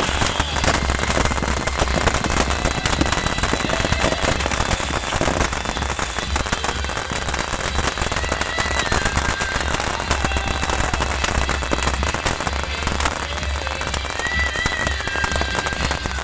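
Beehive fireworks going off en masse: a dense, continuous crackle of many small rockets and firecrackers exploding at once, with no let-up.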